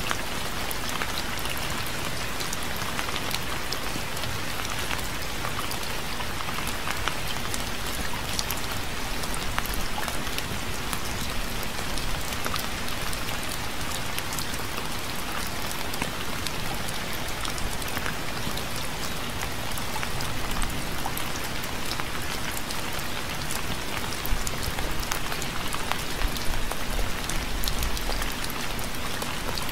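Steady rain falling on a surface, an even hiss with many individual drops ticking through it, a little heavier for a few moments near the end.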